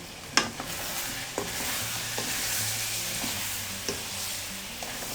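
Chicken, onion and ground spices sizzling in a handi as they are stirred, with a few sharp clicks of the utensil against the pot.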